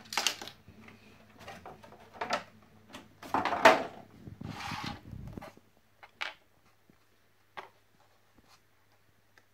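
Small plastic toys being handled and set down on a tabletop: a series of light knocks and clicks, the loudest about three and a half seconds in, followed by a short rustle, with only a few faint clicks in the second half.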